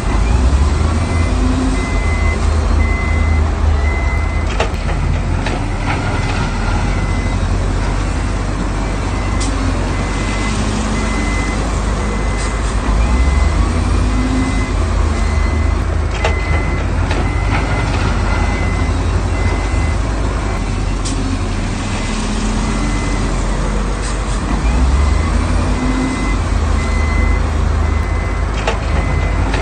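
Heavy diesel earthmoving machinery running with a loud low rumble, its reversing alarm beeping in a steady high on-off pattern the whole time. There are a few sharp knocks now and then.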